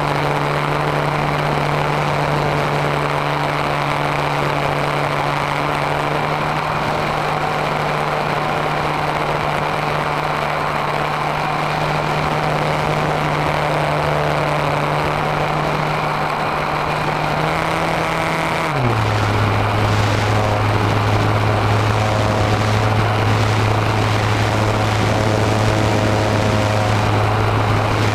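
RC model airplane's motor and propeller droning steadily, heard from a camera on board with wind rushing past. About two-thirds of the way through, the drone drops abruptly to a lower pitch and gets a little louder.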